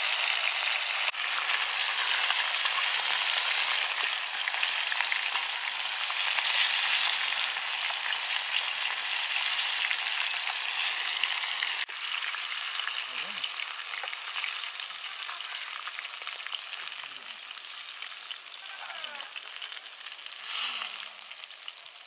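Chicken drumsticks sizzling as they shallow-fry in oil on a flat iron griddle: a steady crackling hiss. It drops suddenly in level about halfway through and carries on more quietly.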